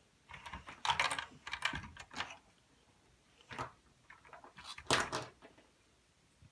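LEGO pieces clicking and clattering as they are handled and moved across a tabletop. The clicks come in two spells of quick clicks, the loudest about a second in and again about five seconds in.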